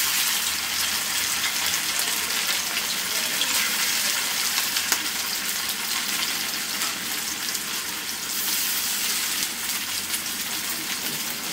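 Marinated anchovies shallow-frying in hot oil in an iron tawa: a steady sizzle with small scattered pops.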